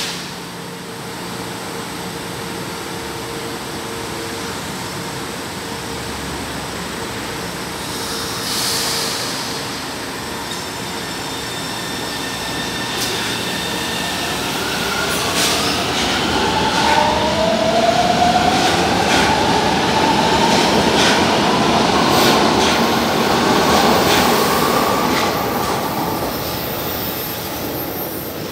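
São Paulo Metro Line 3 train pulling out along the platform. Its traction motors give a whine that rises in pitch as it accelerates, over wheel-on-rail rumble and clicks that grow louder through the second half.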